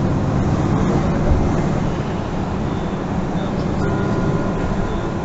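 MAN NG 363 Lion's City GL articulated city bus heard from inside the passenger cabin: a steady low rumble of the diesel engine and running gear. A faint high whine joins about four seconds in.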